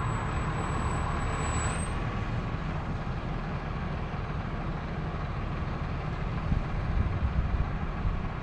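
Crane truck's engine running steadily, a low rumble while the crane lifts, with a thin high whine that stops about two seconds in.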